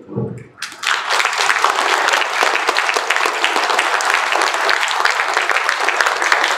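Audience applauding, starting about half a second in and going on steadily.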